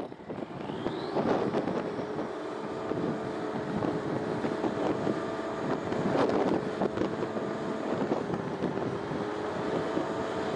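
1989 Ford L-9000 grain truck running parked while its hydraulic hoist raises the dump bed: a steady pump whine sets in about two seconds in and holds, with a few sharp knocks from the box and hoist. Wind buffets the microphone.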